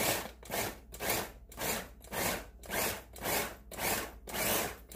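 Small electric food chopper pulsed in short, even bursts, about two a second, its blades coarse-chopping bell pepper and onion.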